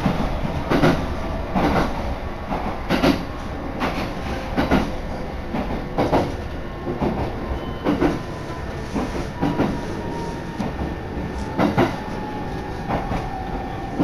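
Train wheels knocking over rail joints in an even clickety-clack, about one knock a second, over a steady rolling rumble heard from inside the carriage. A faint whine sinks a little in pitch near the end as the train slows into the station.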